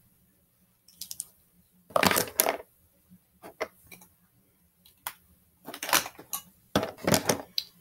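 Small hard objects clicking and clattering in a series of short bursts: makeup cases and tools being handled and set down.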